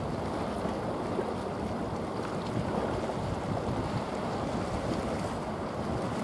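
Steady wind rumble on the microphone over the wash of water.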